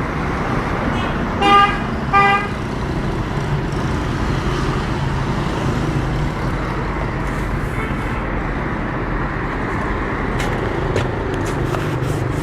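Steady engine and traffic noise with two short vehicle-horn toots, one about a second and a half in and another just after two seconds in.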